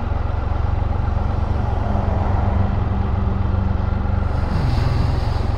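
Can-Am Spyder RT Limited three-wheeler's Rotax 1330 ACE inline-three engine running steadily while riding. Its note drops about four and a half seconds in.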